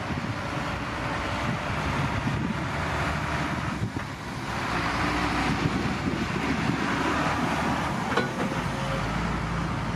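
Boeing 737-800's twin CFM56-7B turbofan engines running at take-off thrust as the jet rolls down the runway and lifts off. The engine noise is a steady rumble mixed with wind on the microphone.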